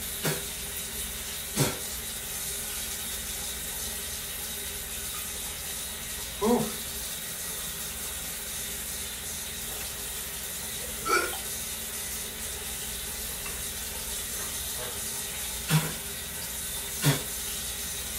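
Bathroom sink tap running steadily while someone washes at the basin, with a few brief louder sounds, splashes and knocks, scattered through it.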